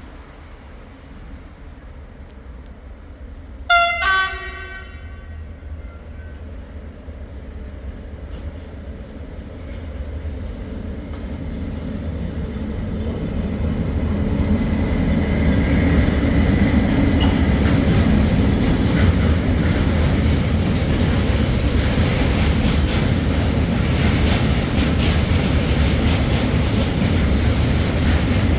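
A train horn gives one short blast about four seconds in. Then the rumble of a train grows as it approaches, and it runs past loud and steady on the rails.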